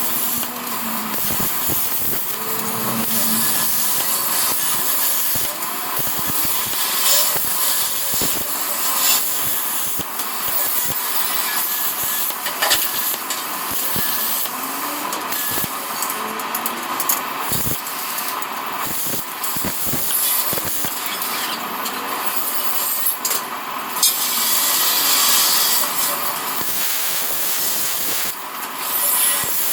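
Plasma cutter hissing steadily as its arc cuts through steel, with a few sharp crackles.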